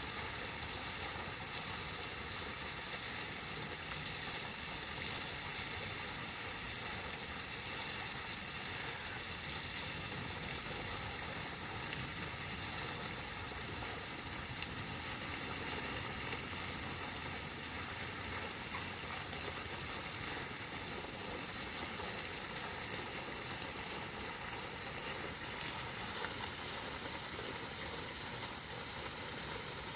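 Steady rush of running water, with one brief click about five seconds in.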